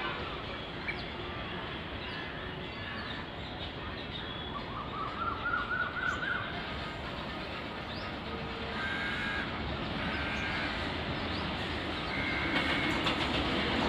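Birds chirping and calling over steady outdoor background noise, with a quick rising run of chirps about five seconds in. Near the end a rumble grows louder as an approaching train draws near.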